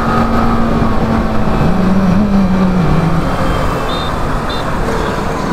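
Yamaha R15 V4's 155 cc single-cylinder engine running under way, with wind rush over the microphone. Its note holds steady, then falls in pitch about two to three seconds in. Two short high beeps sound about four seconds in.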